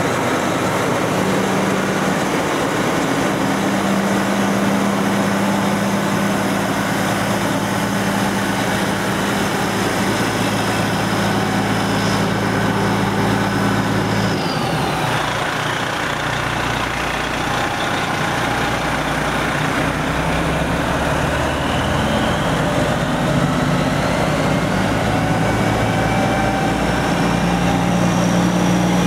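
Fire engine's diesel engine idling steadily, its low hum changing in tone about halfway through.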